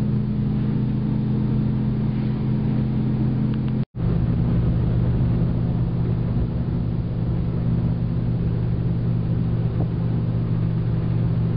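Vehicle engine pulling steadily up a steep mountain grade, heard from inside the cabin as a constant low drone. The sound cuts out for an instant about four seconds in.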